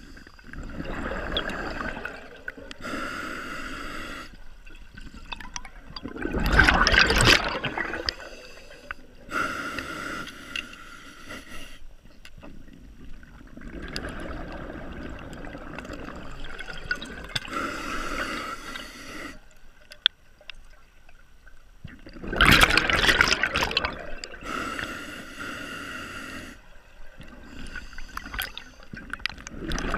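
Scuba diver breathing through a regulator underwater: drawn breaths through the regulator in between, and two loud gushes of exhaled bubbles, about six seconds in and again about twenty-two seconds in.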